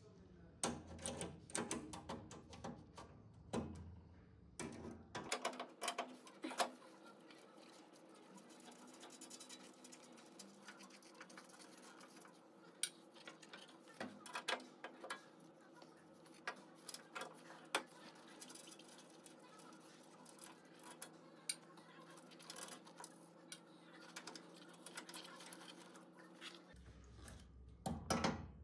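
Faint, irregular metallic clicks and taps of a screwdriver working the screws on a steam humidifier's heating-element power contacts, over a low steady hum.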